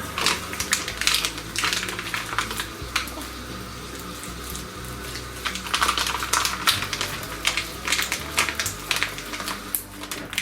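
Sticky slime being worked and pulled out of a cup by hand, with a dense run of irregular crackling clicks.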